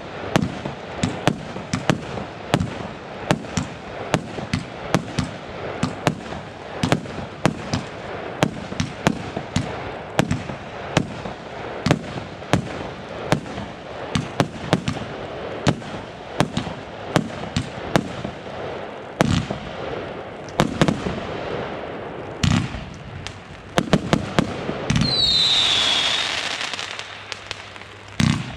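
Consumer fireworks going off in a rapid run of sharp bangs, about two a second, over crackling. Near the end, a loud hiss with a brief falling whistle cuts in for about two seconds.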